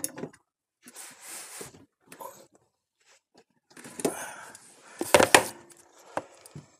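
Scattered knocks and clicks from handling a socket ratchet at the windshield wiper arm nut, with a short loud clatter about five seconds in.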